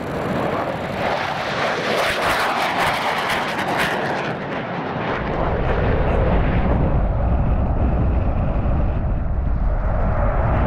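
Military fighter jet flying low past: loud jet engine noise with a crackle from about two seconds in, then a deep low rumble that builds through the second half.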